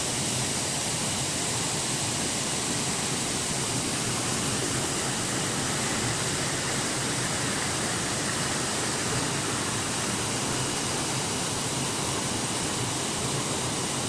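Steady rush of a rocky jungle stream cascading between boulders at a waterfall.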